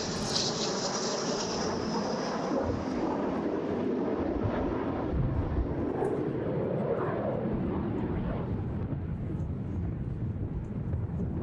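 Jet noise from Alpha Jets' twin Larzac turbofan engines, running steadily, with a high whine that fades out over the first few seconds.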